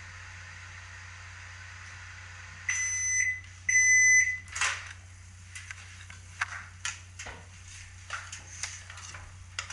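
Microwave oven running with a steady hum, then beeping twice, long and high-pitched, as its cooking timer ends. A sharp click follows, then light scattered knocks and clinks.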